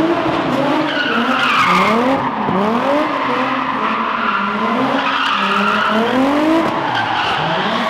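Nissan 350Z's V6 revving hard in repeated rising surges while its rear tyres squeal and skid through a drift. The screech wavers with each pull of the throttle.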